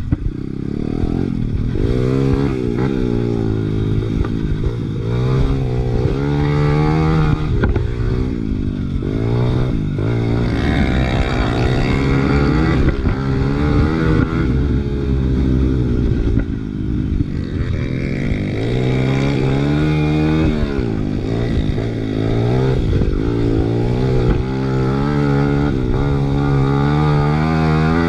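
Honda XR100R's big-bored single-cylinder four-stroke engine under hard riding, revving up again and again and dropping back between gears and throttle changes.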